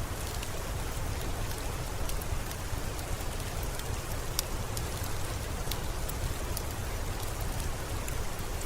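Steady rain with a deep low rumble underneath and scattered sharp ticks.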